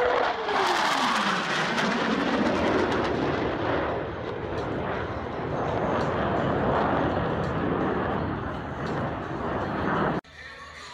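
Blue Angels F/A-18 Hornet jets passing: the engine whine drops in pitch as they go by in the first second or two, followed by a loud, steady jet roar that cuts off abruptly near the end.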